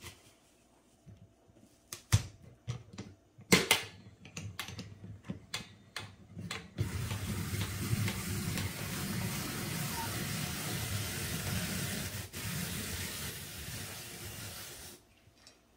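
Hand-cranked apple peeler-corer-slicer. First come a few sharp knocks and clicks as an apple is fitted onto the fork. Then the crank turns steadily for about eight seconds while the blade scrapes the peel off and the apple is spiral-sliced and cored, and the sound stops abruptly near the end.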